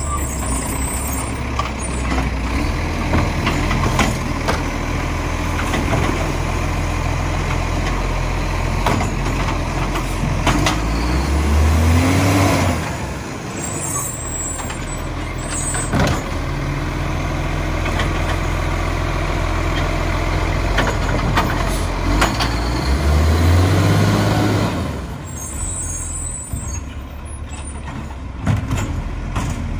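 Iveco Acco side-loader garbage truck's diesel engine running, revving up twice to power the hydraulic lifting arm as it picks up and empties kerbside wheelie bins. There are short air-brake hisses near the start, about halfway through and near the end.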